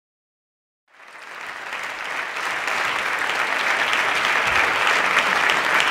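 Audience applauding, coming in about a second in and swelling to a steady clapping.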